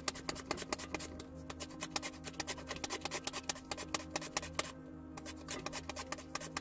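A sweet potato being sliced thin on a handheld slicer: quick, even scraping strokes, several a second, with a short break about five seconds in, over a steady low hum.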